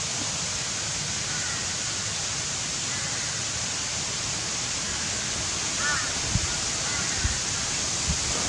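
Steady rushing hiss in the open air, with a few faint bird chirps about six seconds in and several soft low knocks near the end.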